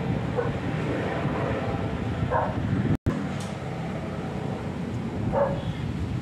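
Steady low outdoor rumble, with a short pitched call, like a distant bark, standing out about every three seconds. The sound drops out for an instant just past halfway.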